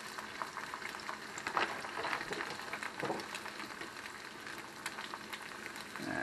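Eggs frying in oil in a skillet: a steady sizzle with scattered crackles and pops.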